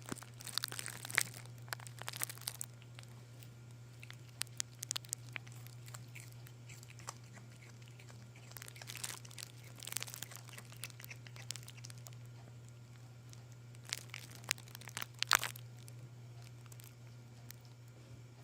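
A kitten chewing and crunching vegetable peels, in about four short bouts of crisp bites with pauses between.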